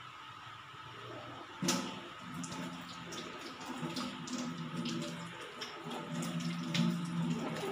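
A perforated steel ladle stirring melted palm sugar syrup in a steel wok: liquid sloshing, with a sharp clink of the ladle against the pan about one and a half seconds in and lighter scrapes after. The syrup is being stirred while it heats up to the boil.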